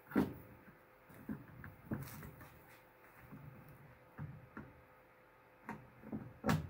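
Irregular knocks and clicks of cylindrical Yinlong LTO battery cells and their metal end plate being handled and set down on a desk, with the loudest clunks just after the start and near the end.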